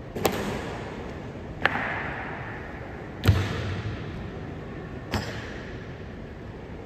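Honor guard's ceremonial slow-march boot stamps: four sharp, echoing strikes spaced about one and a half to two seconds apart.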